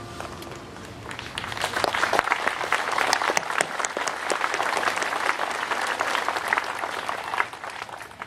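Crowd clapping, swelling about a second in and dying away near the end.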